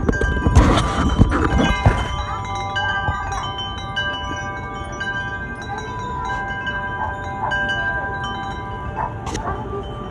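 Wind chimes ringing: many overlapping, sustained tones at different pitches, struck at irregular moments. In the first two seconds there is low thumping and rustling, and there is a single sharp click near the end.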